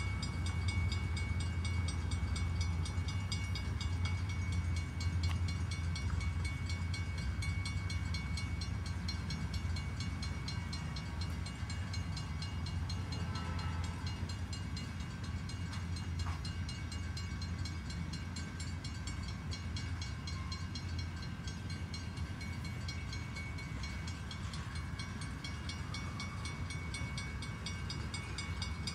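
Freight train cars rolling past, a steady low rumble from the wheels on the rails with a steady high-pitched tone above it, slowly getting quieter.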